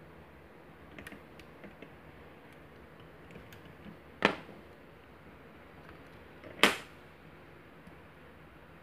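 Lock-picking tools working in a Kwikset SmartKey lock: light metallic ticks and taps, then two sharp clicks about two and a half seconds apart.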